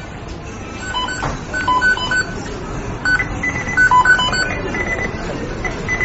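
McDonald's kitchen beeping sound effect: short electronic beeps at a few different pitches, coming in quick clusters, over the steady noise of a fast-food kitchen. Around three seconds in the beeps shift to a higher pitch.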